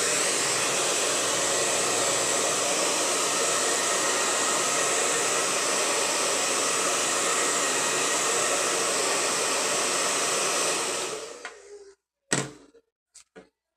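Handheld hair dryer blowing steadily on a wet acrylic painting to dry it. About eleven seconds in it is switched off and dies away over a second. A single knock and two light clicks follow.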